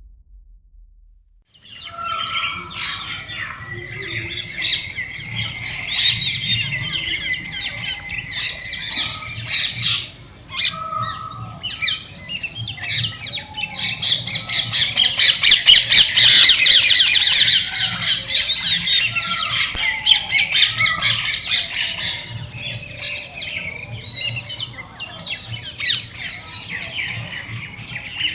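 A dense chorus of many birds calling at once in a jungle ambience, starting about two seconds in. Near the middle a very fast run of rapidly repeated calls is the loudest part, and earlier one thin, steady note is held for several seconds.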